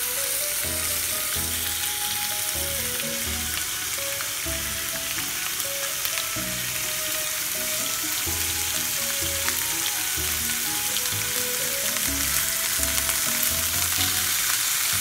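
Thin slices of beef shoulder loin sizzling steadily in oil in a nonstick frying pan over a gas flame that the cook finds too high. Background music plays faintly underneath.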